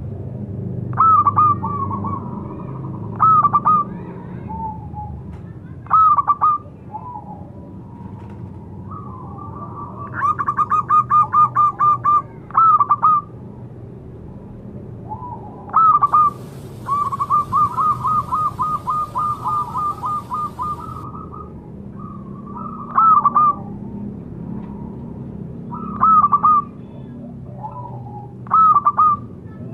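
Zebra dove (perkutut) calling: short staccato coo phrases every few seconds, with two longer runs of rapid notes at about four a second, one around ten seconds in and one from about seventeen to twenty-one seconds.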